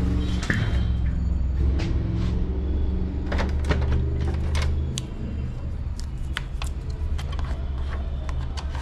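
Brother MFC-J3720 inkjet printer's motors running, a low steady drone with scattered clicks. The scanner mechanism is working normally, with the AF error cleared.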